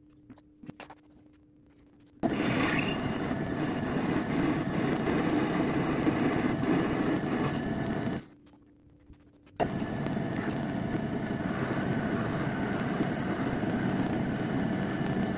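Milling machine cutting into a metal workpiece with an end mill: a steady, noisy cutting sound that starts suddenly about two seconds in, stops about eight seconds in, and starts again a second and a half later.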